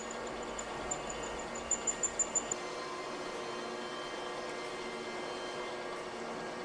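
Radial-arm drill press running with a steady hum. In the first couple of seconds there is a rapid high ticking and a quick run of sharp clicks, then only the hum.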